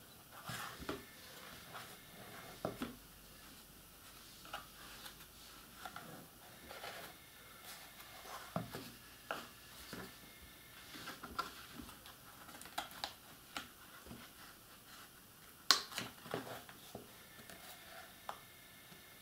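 Chipboard pieces being handled and pressed together by hand while forming a box: scattered soft clicks and taps at irregular times, with one sharper click about three-quarters of the way through.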